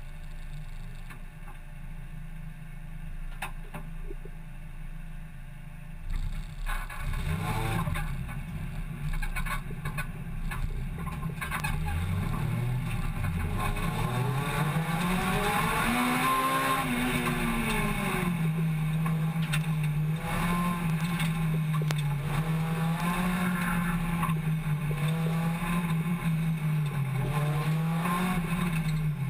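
Hot hatch race car's engine heard from inside its stripped, roll-caged cabin. It idles at first, then about six seconds in it pulls away, the revs climbing and dropping as it gets under way, then holds fairly steady, slightly wavering revs.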